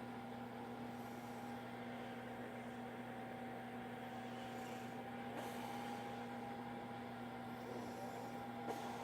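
Steady electrical hum, a low tone with a higher whine above it over faint hiss, with a small tick near the end; no snoring.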